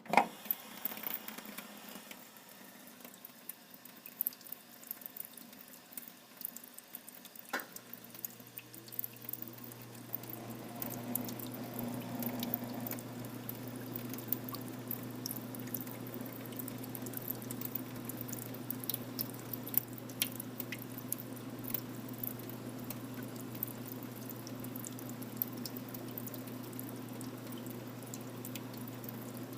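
Commercial drinking fountain running, its water stream trickling and splashing into the basin. About seven seconds in, a click is followed by the steady low hum of the fountain's refrigeration compressor kicking on to keep the water cold.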